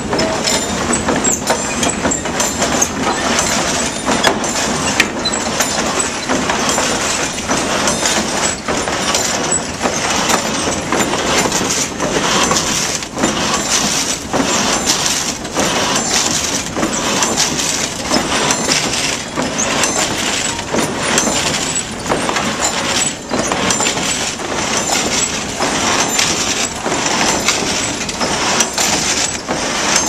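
Water-powered sash sawmill cutting a log: the up-and-down saw blade rasps through the wood in repeated strokes over the clatter of the wooden mill works.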